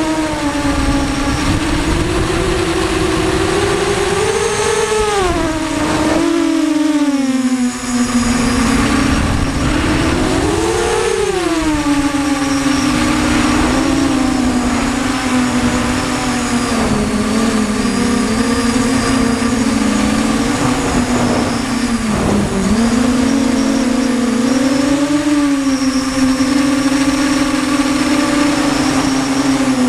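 Brushless motors and propellers of a QAV250 racing quadcopter (Cobra 1960KV motors on a 4S battery), heard from the onboard camera: a steady buzzing whine whose pitch rises and falls with the throttle. It surges up around four to five seconds in and again near eleven seconds, and drops briefly near eight seconds. Wind noise on the microphone runs underneath.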